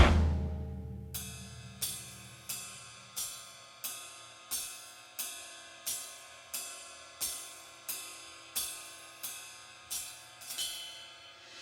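Background music in a quiet break: the loud music fades out over the first second, then a cymbal rings about every two-thirds of a second over a soft held chord.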